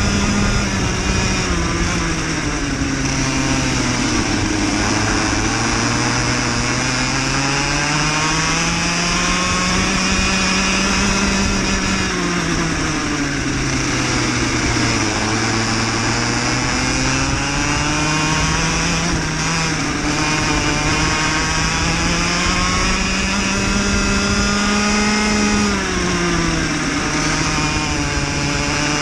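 Cadet kart's small single-cylinder engine heard from on board, racing: the engine note drops three times as the kart slows for corners and climbs back each time on the straights.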